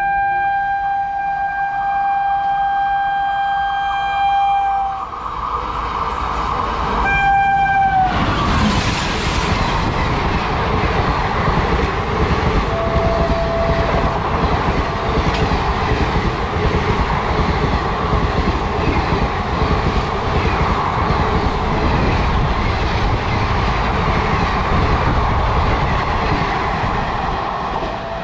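A train horn sounds a long steady blast of about four and a half seconds, then a shorter blast that sags in pitch as it ends. The train then runs through the platform at speed with a steady loud rumble and wheel clatter on the rails.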